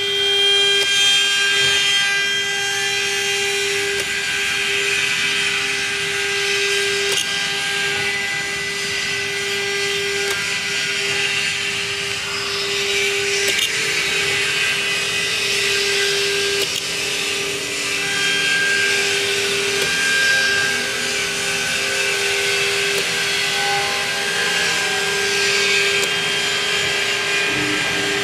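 CNC router spindle running with a steady whine while its bit drills a series of holes in an acrylic sheet. The hiss of the cutting swells and fades every few seconds.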